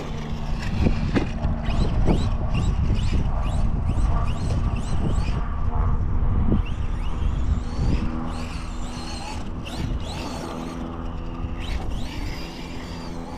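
Traxxas Sledge RC truck driving over sand, its brushless electric motor whining at a steady pitch, over a heavy low rumble of wind on the microphone.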